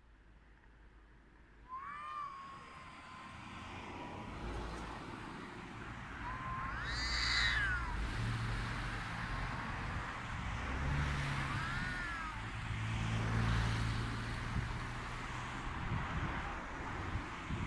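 Domestic cat's mating yowls during courtship: three long, wavering calls, the loudest about seven seconds in and a fainter one near twelve seconds. Under them is a low rumble that grows from about four seconds in.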